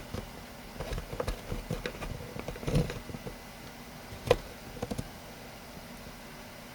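Irregular clicks and taps of hands on an HP laptop, keys or buttons being pressed as it is started up, with one sharper click about two-thirds of the way through.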